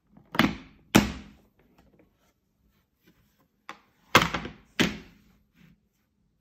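Sharp clacks from a Glock 17 blowback air pistol being handled: two pairs of loud clacks about half a second apart, with a lighter click between the pairs.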